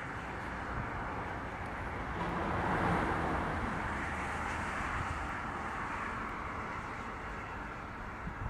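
Rushing noise of a vehicle passing out of view, swelling to its loudest about three seconds in and then easing off.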